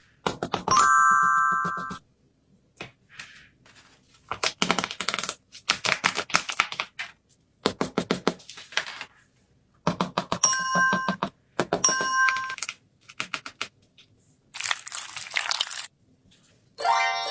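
Paper crinkling and rustling in short bursts of quick crackles, as handmade paper crafts are handled. Short bell-like chimes ring at the start and twice just past the middle.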